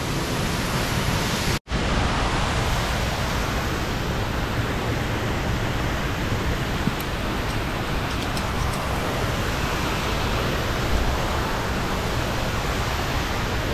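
Steady wind buffeting the microphone: a dense rushing noise with a fluttering low rumble. It cuts out completely for an instant about a second and a half in.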